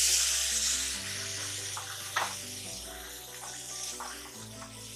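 Sizzling as boiled black chickpeas land in hot oil and tomato masala in a hammered metal kadhai, loudest at first and easing after about a second, then a wooden spatula scraping and knocking against the pan a few times. Background music plays throughout.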